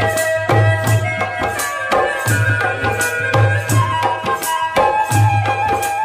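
Background music: an instrumental with a steady low drum beat under a held, pitched melody line.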